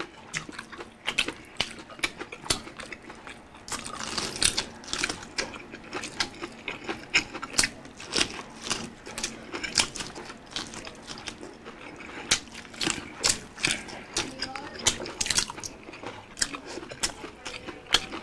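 Close-miked mukbang eating sounds: wet chewing, lip-smacking and mouth clicks from two people eating with their hands, coming irregularly many times a second.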